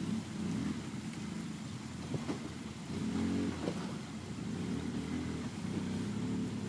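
Polaris RZR S side-by-side engine running at low speed while rock crawling, the revs rising and falling in repeated throttle surges.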